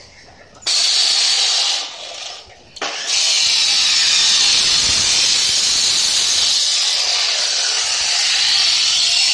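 Bench-mounted abrasive cut-off saw (chop saw) grinding through metal box-section tube with a loud, high hissing screech. It bites in under a second in, eases off briefly around two seconds, then cuts steadily.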